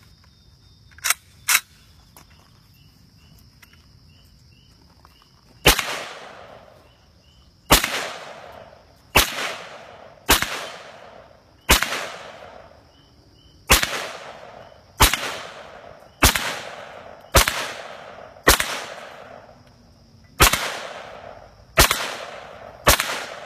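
.30 caliber carbine firing WWII-era steel-cased .30 carbine ammunition, thirteen shots at an uneven pace of roughly one every one to two seconds, each followed by a short echo; the nearly 80-year-old rounds are firing. Two sharp clicks about a second in come before the shooting starts.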